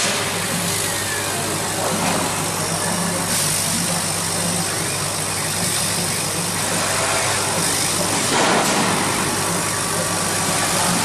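Laser cutting machine running while it cuts acrylic sheet: a steady machine hum with an even hiss over it, and a brief louder rush about eight and a half seconds in.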